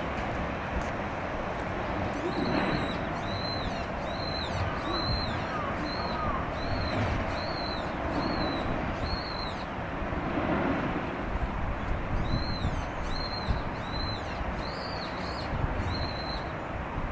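A bird calling repeatedly: a short, high note rising and falling, about every 0.7 seconds. It comes in two runs of about eleven and six notes with a pause between, over a steady low rumble.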